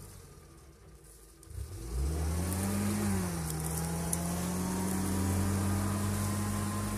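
UAZ-469 engine straining stuck in a flooded mud ditch. It eases off for about a second and a half, then revs up sharply about two seconds in and holds high revs as the wheels spin in the muddy water.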